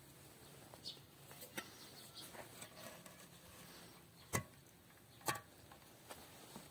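A few sharp, faint knocks and clinks from a soot-blackened metal kettle being gripped and lifted out of a clay stove pit, the two clearest a little past halfway and about a second later.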